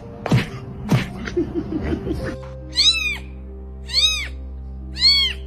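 Cat meowing three times, about a second apart, each call rising then falling in pitch, preceded by a few sharp short sounds.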